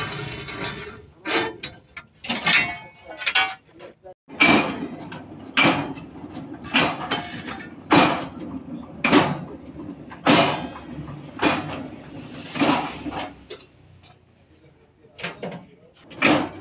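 Regular metallic clanks, about one a second, as a truck leaf-spring leaf is worked through a roller spring-bending machine.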